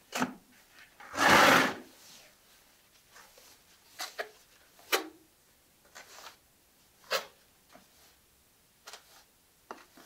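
Trowel scraping thinset mortar, with one longer, louder scrape about a second in and then a series of short separate strokes as the mortar is spread on the concrete floor.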